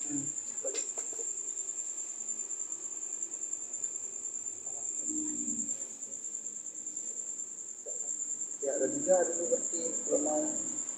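Crickets trilling in a steady, high-pitched chorus, with brief murmured voices near the end.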